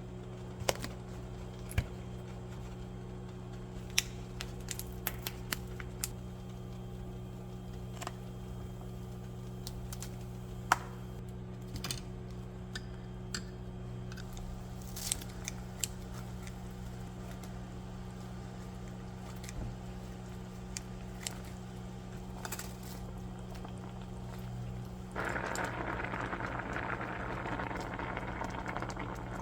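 Kitchen work: scattered light clicks and taps of utensils over a steady low hum. A steady hiss, like water running or food frying, starts near the end.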